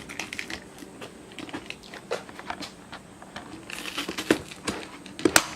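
Cardboard battery box being handled: scattered light rustles and clicks, a short scrape a little before four seconds in, and a sharp snap near the end.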